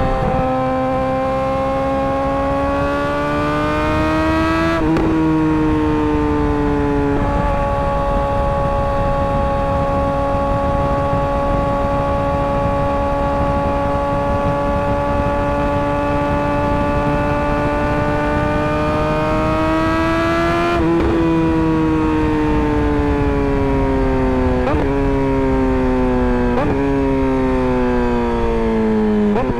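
Suzuki GSX-R600's inline-four engine running through an M4 GP slip-on exhaust while ridden. The revs climb, then drop sharply about five seconds in like an upshift, and hold a nearly steady cruise. From about twenty seconds in the revs fall steadily as it slows, with two short clicks along the way.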